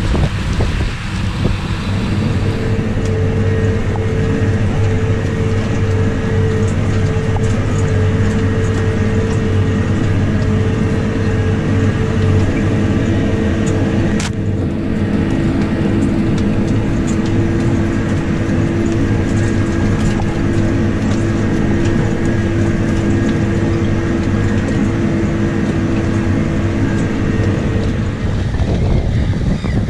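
Case Maxxum tractor's diesel engine running steadily under load while pulling a Super Tatú eccentric 56-disc harrow, a constant drone over the hiss and clatter of the discs cutting and throwing soil. The engine's steady tone fades out near the end.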